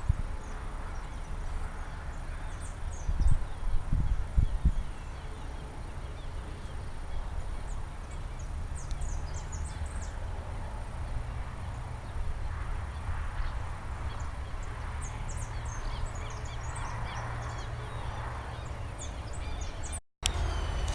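Wind buffeting the microphone in a steady low rumble, with a few heavier bumps about three to five seconds in. Short high bird chirps come and go over it.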